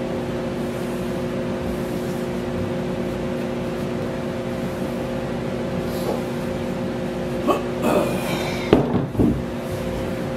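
Steady machine hum of a running appliance in a workshop, with a few wooden knocks and scrapes between about seven and nine and a half seconds in as the gate frame is handled on the bench.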